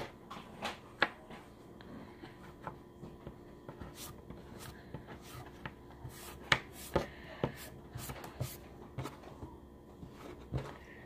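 Irregular soft taps and clicks of hands pressing and patting moldable play sand on a hard tabletop, with a few sharper knocks, the loudest about six and a half seconds in.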